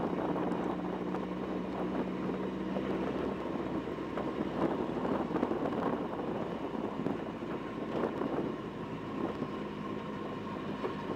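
Banger racing car's engine running steadily at low revs, heard from inside the stripped-out cabin as the car drives slowly over dirt.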